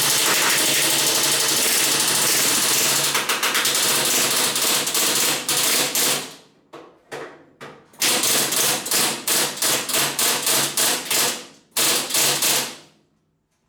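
Pneumatic rivet gun hammering 3/16-inch solid steel rivets through 18-gauge steel body panels: rapid continuous hammering for about six seconds, then a few short bursts and a run of quick stuttering bursts that stops shortly before the end.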